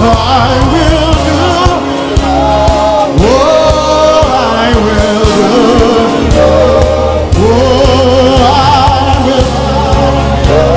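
Live gospel worship music: a band with steady bass and drums under singing, the voices sliding up into long held notes with vibrato.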